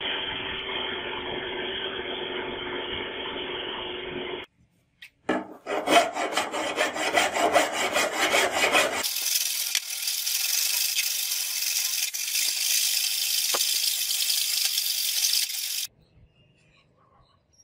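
Angle grinder grinding steel with a steady whir for about four seconds. After a short pause, a hand file scrapes along a steel blade in repeated strokes. Then comes a steady high scraping hiss that cuts off near the end.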